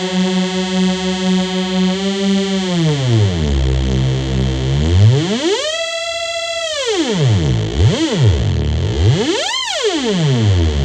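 Braids digital oscillator (Mutable Instruments firmware on an STM32F103 breadboard) playing one fat, overtone-rich synth tone whose pitch is swept by hand: it holds a low note, glides down about 3 s in, sweeps up to a high note held around 6 s, dives very low, then swoops up and back down once more near the end. Heard through a phone microphone.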